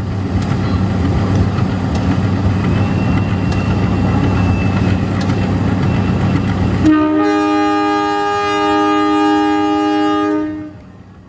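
CC 201 diesel-electric locomotive pulling a passenger train away, its engine running with a loud, deep, steady rumble and a few sharp clicks. About seven seconds in, the rumble cuts off abruptly and the locomotive's horn sounds one long multi-tone blast of about three and a half seconds, dipping briefly midway.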